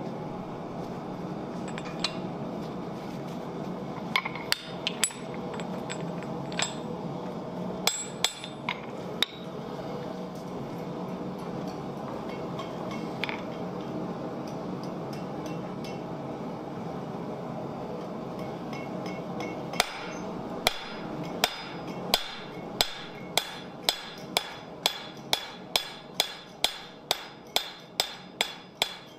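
Hand hammer striking red-hot steel on an anvil: a few scattered metal clinks and blows in the first third, then a steady run of hammer blows at about two a second from about two-thirds through, each with a short ring.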